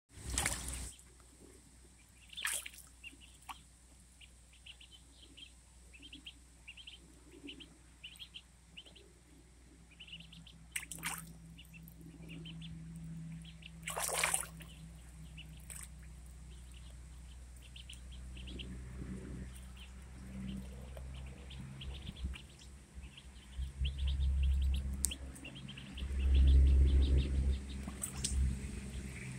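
Ducklings peeping in long runs of short high peeps, with water splashing a few times as a duckling dives and bathes in a shallow pool. A louder low rumble comes in near the end.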